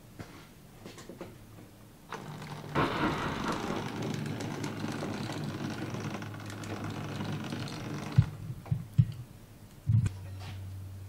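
O gauge model tank locomotive running as it shunts coal wagons: a steady motor-and-wheel rumble on the track starts about two seconds in. Near the end come several sharp clunks of wagon buffers and couplings, then a steady low hum.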